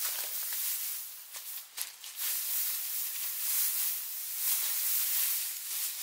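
Dry straw rustling as it is handled and spread by hand on the ground, in swelling and fading strokes, with a few sharp crackles about two seconds in.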